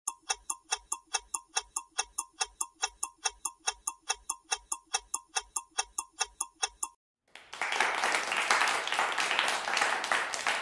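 Countdown clock-ticking sound effect, about four ticks a second, which stops about seven seconds in; then recorded applause plays as the answer is revealed.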